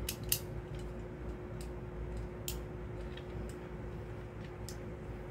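Scattered light plastic clicks and taps, about seven or eight spread unevenly, as Beyblade parts and launcher are handled, over a steady low hum.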